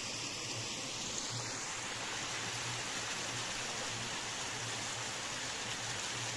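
Small stream rushing over rocks between snowy banks: a steady, even rush of water.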